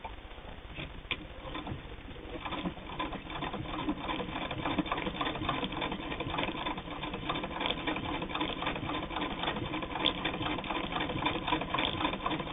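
Hand-cranked Singer 99 sewing machine stitching through eight layers of heavy denim: a steady rapid clicking of the needle and mechanism, starting softly and getting louder about two seconds in.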